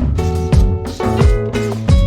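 Background music with a steady beat: a kick drum about twice a second under held synth notes.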